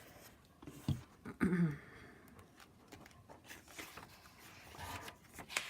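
Quiet handling of cut-out book pages: soft paper rustles and a few light ticks, the sharpest near the end, with a brief murmur about a second and a half in.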